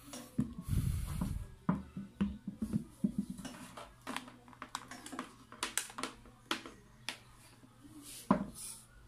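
Handling noises as an electric planer is shifted on a tabletop and its rubber power cord is uncoiled: a low scrape about a second in, then scattered light clicks and knocks.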